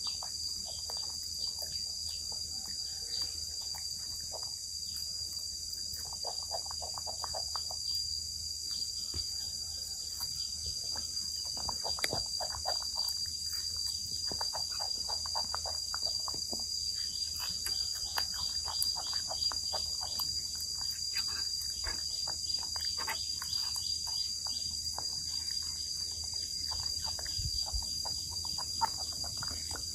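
Steady high-pitched insect chorus, an even drone of insects, with scattered short clicks and ticks throughout.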